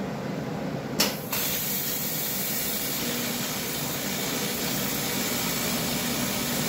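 AC TIG welding arc on a magnesium VW engine case. A brief crackle as the arc strikes about a second in, then a steady hiss.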